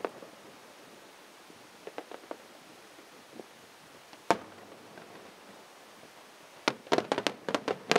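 Fireworks going off: a few faint cracks, a single sharp bang about four seconds in, then a quick run of loud shell bursts in the last second or so.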